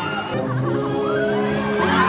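K-pop song performed live and played over arena speakers, with fans screaming and cheering over the music, more so near the end.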